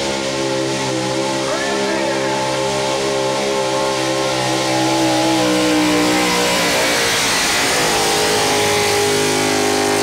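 Pulling truck's engine running flat out as it drags a weight-transfer sled down a dirt track, a steady high-revving drone; its pitch drops a little about seven seconds in as the truck goes past.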